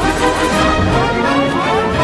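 Film score music playing steadily at full level, busy with many held notes.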